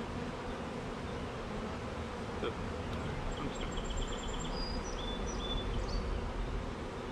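Steady buzzing hum of a swarm of honeybees, newly installed from a package, flying in numbers around the open hive box.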